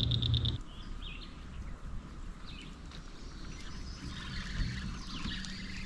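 Outdoor ambience with faint, scattered bird chirps. A steady hum with a rapid high-pitched pulsing cuts off abruptly about half a second in.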